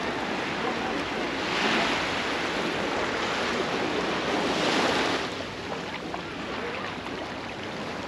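Sea waves breaking and washing up on a beach, with a steady surf hiss. Two louder surges come a few seconds apart, the second fading about five seconds in.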